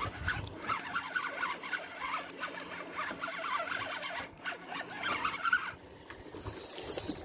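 Spinning reel being cranked against a hooked fish on a bent rod, giving irregular squeaks and clicks, with a short rush of hiss near the end.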